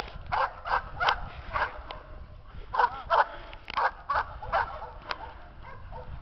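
A police working dog barking in short, repeated barks, about ten of them with a brief pause about two seconds in: the aroused barking of a dog held back before being sent after a helper riding a bicycle in a KNPV apprehension exercise.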